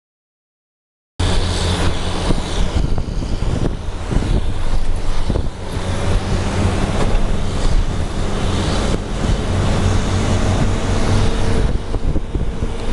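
Heavy diesel harvest machinery running steadily: a loud, even engine drone that cuts in abruptly after about a second of silence.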